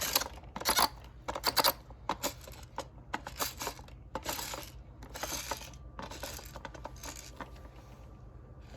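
Hard plastic toy pieces clicking and clattering against each other as they are handled, in quick irregular bursts that thin out over the last few seconds.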